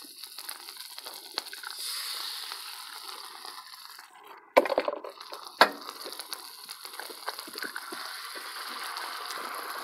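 Eggs sizzling on a hot Blackstone flat-top griddle, with two sharp cracks of eggshell a second apart about halfway through.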